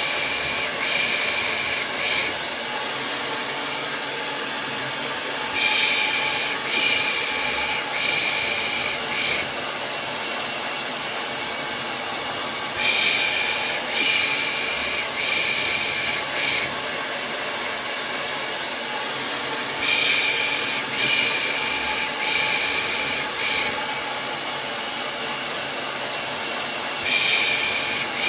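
Hair dryer blowing steadily, used as white noise, with a looped 'pış pış' lulling shush over it. The shushes come in groups of four or five hisses about a second apart, repeating every seven seconds or so.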